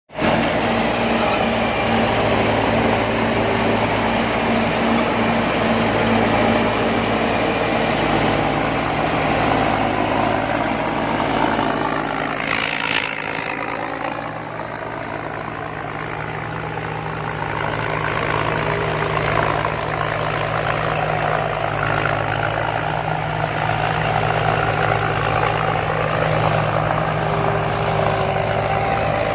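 Engine of a rice combine harvester running steadily, dipping a little in level for a few seconds about halfway through.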